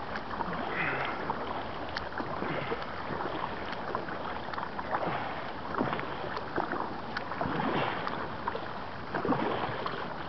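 Kayak paddle strokes dipping and splashing in river water, a stroke every second or two, over a steady wash of moving water.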